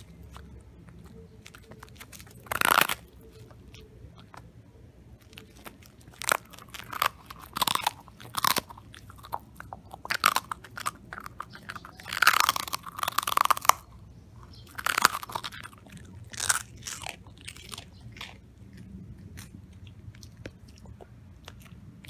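A dog crunching and chewing a microwave-puffed Himalayan yak-milk cheese chew, in irregular bursts of crisp crunches. The first comes a couple of seconds in, the crunching is busiest and loudest in the middle, and it dies away in the last few seconds.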